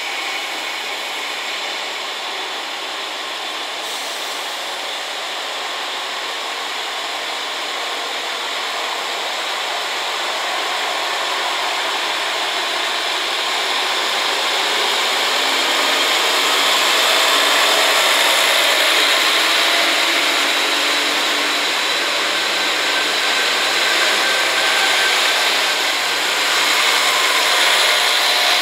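Diesel engines of KiHa 40 and KiHa 47 railcars running as the train pulls slowly past. It is a steady mechanical din that grows louder about halfway through, with an uneven low rumble toward the end.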